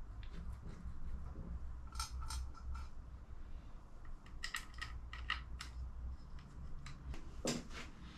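Short, light clicks and taps of small engine parts being handled while a timing housing and its gasket are fitted onto the block's studs. There are a few clicks about two seconds in, a quicker run of them around the middle, and one more near the end, all over a low steady hum.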